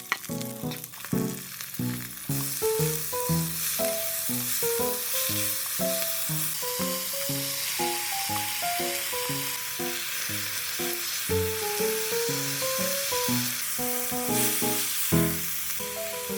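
Ingredients for spicy stir-fried squid sizzling in a hot pan with oil as they are stir-fried. The sizzle is a steady hiss that grows louder about two seconds in.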